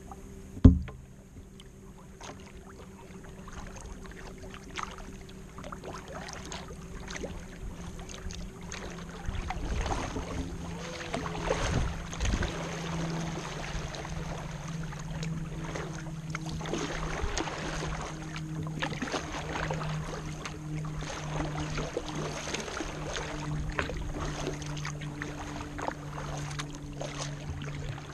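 Kayak paddling: water splashing and dripping off the paddle blades as they dip, stroke after stroke, growing louder from about nine seconds in, over a steady low hum. A single sharp knock comes about a second in, the loudest sound.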